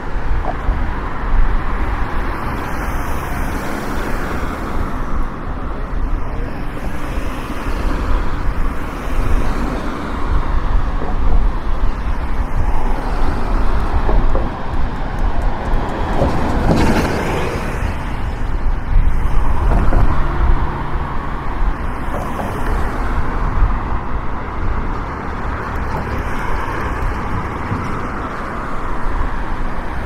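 City street traffic: a steady rush of passing cars, with one vehicle going by close about halfway through.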